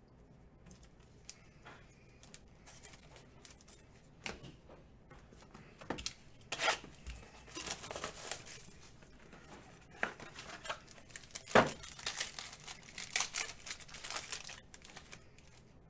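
Trading card packaging being torn open and crinkled by hand, in irregular rustling bursts with scattered sharp clicks as the cards are handled.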